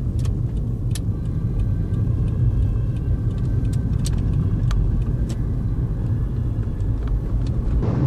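Road and engine noise inside a moving car's cabin: a steady low rumble with a few scattered small clicks and rattles.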